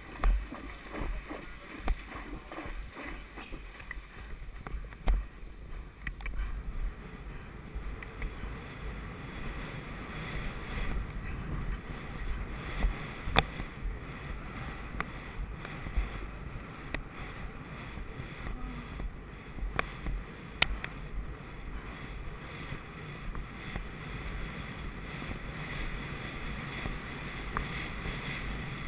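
A horse galloping cross-country, its hooves thudding unevenly under a steady rumble of wind on the rider-mounted camera's microphone. At the start the horse is splashing through shallow water.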